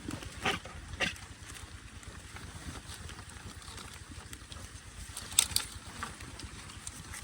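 Outdoor wind rumbling on the microphone, with a few short rustles or clicks about half a second in, about a second in, and a louder pair at about five and a half seconds.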